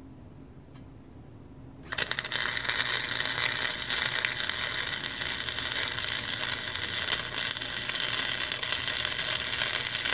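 Wire-feed welder arc crackling steadily as a bead is laid on steel angle iron. It starts suddenly about two seconds in and runs on for about eight seconds.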